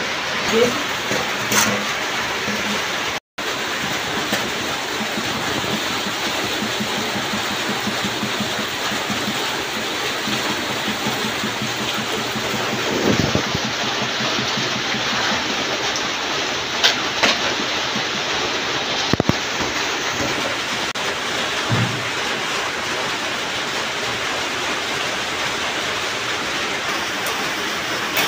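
Steady rain. A few clinks of dishes being washed in basins can be heard.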